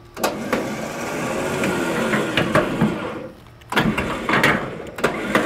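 Badland Apex 12,000 lb electric winch running under its wireless remote, reeling its synthetic rope back in for about three seconds, then a few short bursts as the hook is snugged up to the fairlead.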